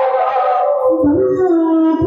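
Assamese nagara naam devotional music: a sustained melody line that steps down to a held note about a second in, over harmonium, with a few low barrel-drum strokes in the second half.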